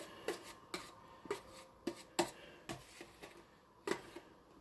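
A spoon tapping and scraping against a plastic meal tray and a plate as corn and macaroni and cheese are scooped out. It makes a string of short, sharp clicks, about two a second, with a pause of about a second near the middle.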